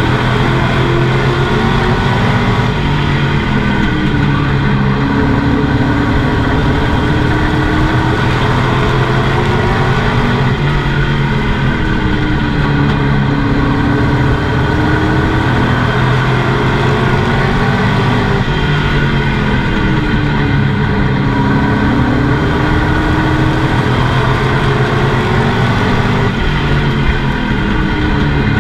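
A Pro Truck race engine heard from inside the cockpit at racing speed, loud and continuous. Its pitch falls and climbs again every several seconds as the truck goes around the oval.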